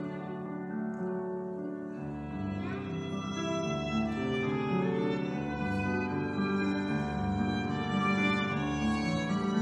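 Violin and piano playing a slow romance together: the violin holds long melody notes over the piano accompaniment, growing a little louder after about two seconds.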